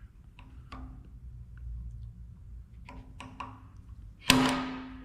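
Hammer tapping a center punch on a metal part. A few light taps come first, then one sharp blow a little past four seconds in, which rings out briefly.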